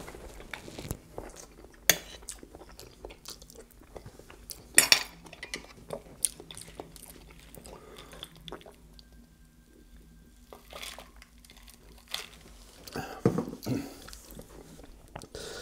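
Close-miked chewing and mouth sounds of eating soft, creamy scalloped potatoes: wet smacks and scattered sharp clicks, a few louder than the rest. Around the middle the chewing gives way to a quieter stretch while he drinks from a glass.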